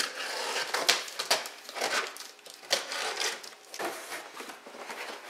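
Cardboard shipping box being opened by hand: flaps and cardboard scraping and rustling, broken by several sharp clicks and knocks.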